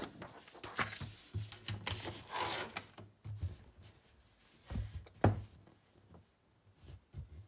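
A sheet of paper being handled and slid on a wooden tabletop: scattered rustles and rubbing, then two soft knocks about five seconds in.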